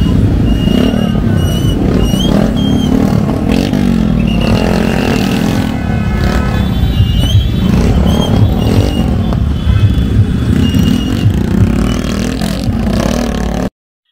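Loud road traffic dominated by motorcycle engines, with short high-pitched toots scattered through; it cuts off suddenly near the end.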